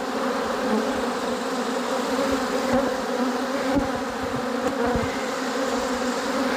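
Honey bees from an opened hive flying in large numbers, a loud, steady buzz of many wings with several held pitches. The colony is agitated and defensive, disturbed by the frame inspection.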